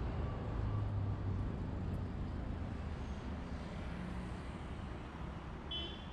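Steady low rumble of city street traffic, with a vehicle engine hum swelling briefly about a second in.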